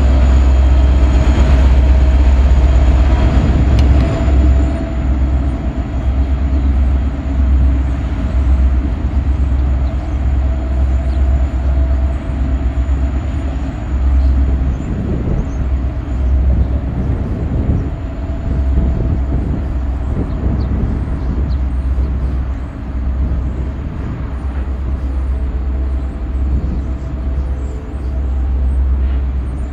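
Norfolk Southern SD40E helper locomotives on the rear of a coal train passing and pulling away. Wheel-on-rail noise in the first few seconds gives way to a deep diesel rumble that rises and falls as the locomotives recede.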